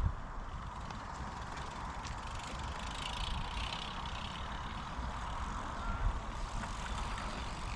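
Mountain bike rolling along a trail: a steady tyre-and-drivetrain rumble under a low, uneven wind buffet on the microphone.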